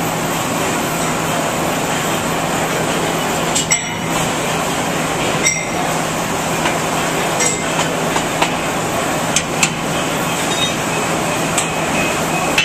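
Electric arc welding: the arc makes a steady frying hiss with a low hum under it, broken by a few sharp pops.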